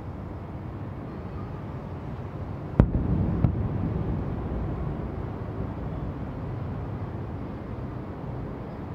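An aerial firework shell bursts with one sharp bang about three seconds in, followed half a second later by a smaller crack and a rolling rumble that slowly fades, over a steady low rumble.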